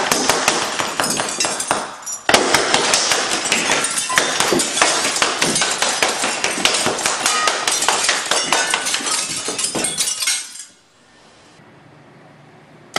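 Rapid volleys of powder-filled pepperball rounds striking a house window, a dense run of sharp hits with glass cracking and breaking, broken by a short pause about two seconds in. It stops suddenly about ten and a half seconds in, leaving only a faint background.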